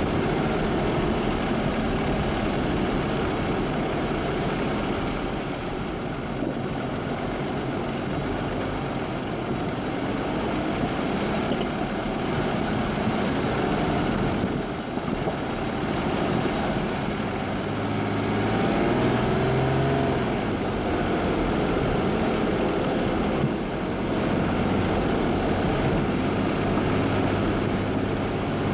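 Jeep engine running, with a steady rumble of road noise; the engine note rises and shifts briefly about two-thirds of the way through.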